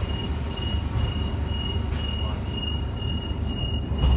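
Loaded container freight wagons rolling past with a steady low rumble and a thin, high-pitched wheel squeal that flickers on and off. A loud thump comes near the end.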